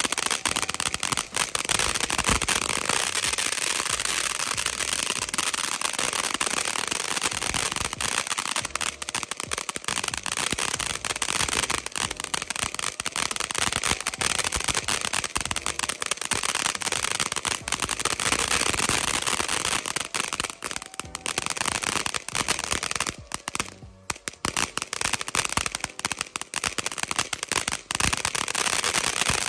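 A 500-gram Majestic Momma fountain firework spraying, with a steady hiss of sparks under a dense run of rapid crackles. The crackle thins briefly about three quarters of the way through, then picks up again.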